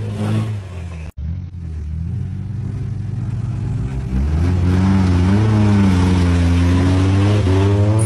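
Off-road 4x4's engine revving hard in low gear as it drives through deep mud, getting louder from about four seconds in, its pitch rising, falling and rising again near the end.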